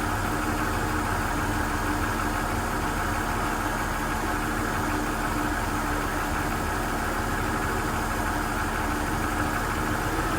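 1999 BMW 528i's straight-six engine idling steadily, with a steady hum and a faint tone that comes and goes; no distinct clunk from a gear change is heard.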